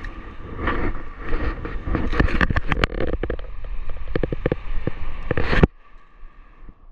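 Wind rumbling on the microphone with a quick run of sharp clicks and rattles as a freshly caught bluefin trevally is handled on the line; the sound cuts off suddenly about two-thirds of the way through.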